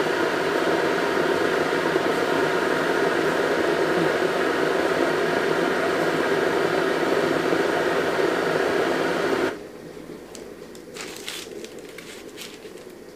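A loud, steady hiss with a hum, as from a fan or kitchen appliance, cuts off abruptly about nine and a half seconds in. Soft rustling and light clicks follow as sesame-coated bagel dough is set on a parchment-lined baking tray.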